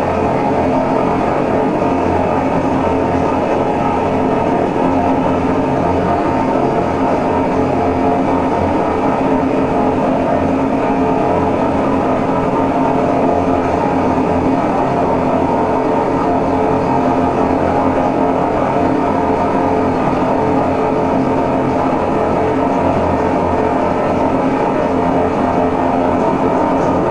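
Live electronic drone-noise music played from a laptop: a loud, dense, unchanging drone of sustained low and middle tones over a steady rumbling haze.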